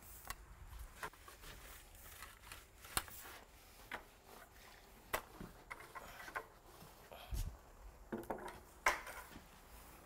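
Paint rollers rolling liquid concrete primer across a concrete slab and being dipped in a plastic bucket: faint rubbing with scattered, irregular clicks and taps, the loudest near the end.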